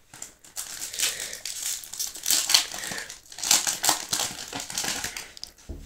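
Foil booster-pack wrapper crinkling in the hands, with an irregular run of rustles.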